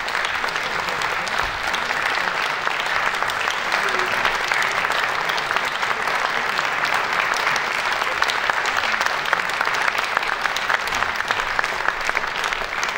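An audience applauding steadily: a dense, even clapping.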